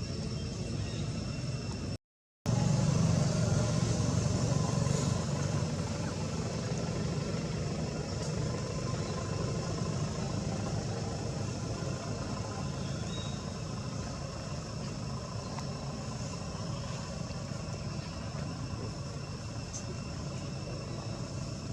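A motor vehicle engine running with a steady low rumble. The sound cuts out for a moment about two seconds in, is loudest just after that, then eases off.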